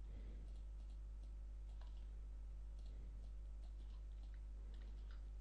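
Computer mouse clicking now and then, a few short faint clicks, over a steady low electrical hum.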